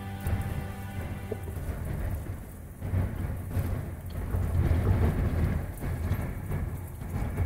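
Steady rain with low thunder rumbling that swells about three seconds in. Background music fades out in the first second or so.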